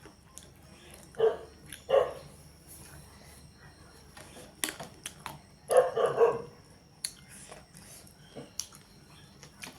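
A dog barking: two single barks about a second and two seconds in, then a quick run of three barks around six seconds, with a few faint sharp clicks in between.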